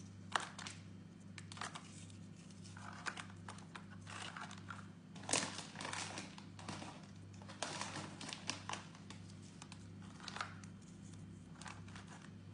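Light rustling and scattered small clicks of hands packing a plastic lunch box: crackers set into a compartment and wrapping crinkling, over a steady low hum.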